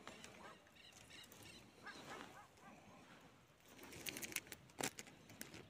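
Faint bird calls in the background, then about four seconds in a quick cluster of sharp clicks and rustles from handling a hooked rainbow trout and its lure in a rubber-mesh landing net.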